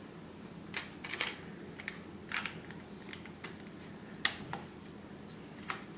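Irregular light clicks and taps of an airsoft M4's parts being handled and adjusted, about nine in all, the sharpest a little past four seconds in.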